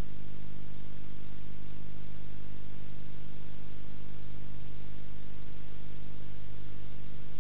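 Steady hiss with a low electrical hum underneath, unchanging throughout: the noise of an old analogue video recording on a blank stretch with no programme sound.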